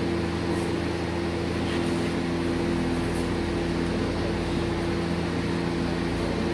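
Steady machine hum holding a few constant low tones, unchanging throughout.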